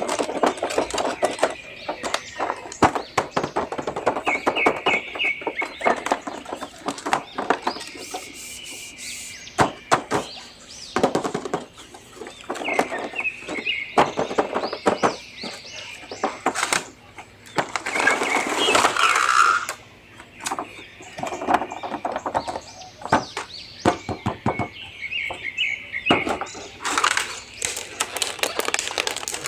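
Plastic toy packaging and action-figure parts being handled: dense irregular crinkling and clicking, with three quick runs of short high chirps.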